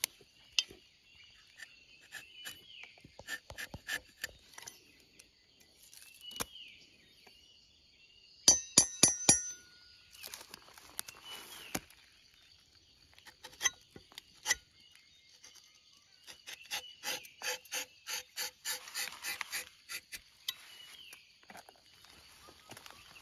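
Rubber-tapping knife shaving a thin strip of bark along the tapping cut of a rubber tree, giving soft scrapes and clicks. A quick run of sharp metallic clinks comes about eight seconds in, and a fast run of clicks comes later.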